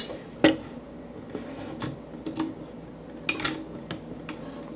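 Hard plastic clicks from a Transformers Energon Ironhide toy being handled: a sharp click about half a second in, then scattered lighter clicks.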